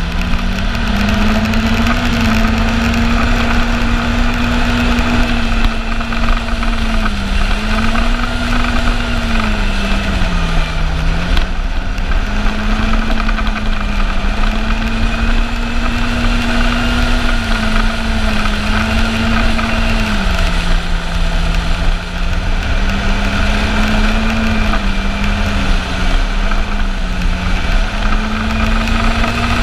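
Yamaha Apex snowmobile's four-stroke four-cylinder engine running at a steady cruise, its pitch dipping briefly several times as the throttle eases off, then picking back up, under a steady rush of track and wind noise.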